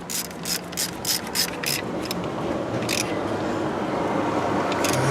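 Ratchet wrench clicking quickly, about five clicks a second for the first two seconds, with a few single clicks later, as fasteners are run back in. A steady rushing noise grows louder behind it after about two seconds.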